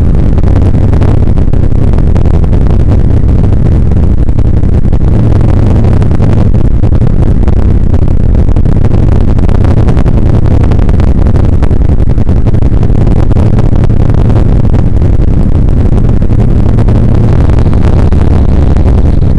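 Bell UH-1 Huey helicopter's rotor and gas-turbine engine heard from inside the cockpit, loud and steady, as the aircraft lifts off and climbs away.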